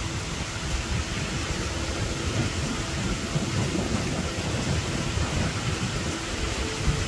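Torrential rain pouring down in a thunderstorm, with strong wind gusts and a low, uneven rumble of thunder underneath.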